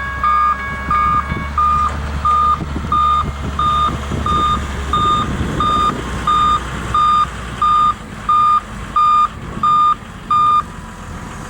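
Electronic warning beeper sounding a loud, even beep about one and a half times a second, stopping near the end, over a low rumble that fades out about halfway through.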